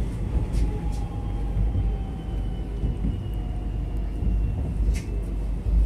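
Suburban electric train running, heard from inside the carriage: a steady low rumble with a faint whine that falls slowly in pitch, and a few light clicks and rattles.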